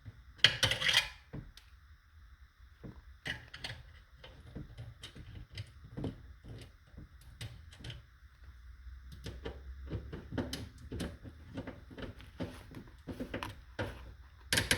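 Irregular small clicks, taps and rattles of hand tools and wire being worked at the terminal bars of a home electrical panel, as a ground wire is fastened. A louder scraping rattle comes just after the start and a sharp knock near the end.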